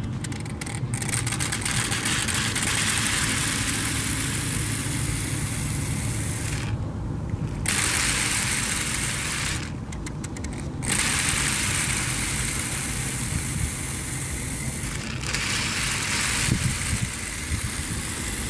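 Small electric suction motor running steadily, pulling air and used engine oil through thin tubes into a glass jar under vacuum, with a steady hiss. The hiss drops out twice for about a second.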